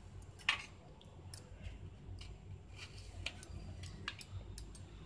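A few faint scattered clicks and light taps of a kitchen knife and cut apple wedges on a steel plate, the clearest click about half a second in.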